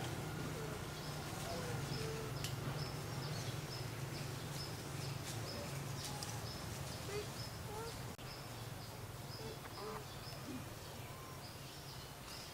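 Outdoor ambience: scattered short bird chirps and a high call repeating about three times a second, over a steady low hum.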